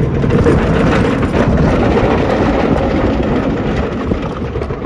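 Superman: Krypton Coaster train, a B&M floorless coaster, running at speed along its steel track: a steady, loud rumble of the wheels.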